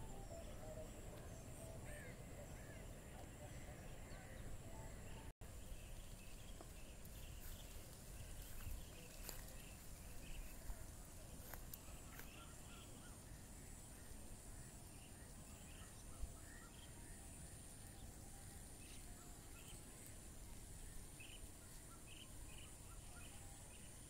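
Faint outdoor evening ambience: scattered short bird chirps over a steady high-pitched hiss and a low rumble.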